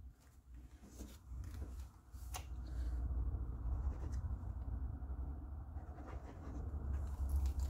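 Glue applicator tip rubbing back and forth over card stock, a continuous scratchy scraping that grows louder about two and a half seconds in, with a few small clicks of paper handling.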